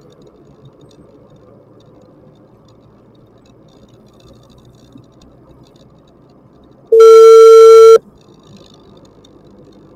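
Faint steady noise of the moving vehicle, then about seven seconds in a single loud, steady one-pitch beep lasting about a second that starts and stops abruptly.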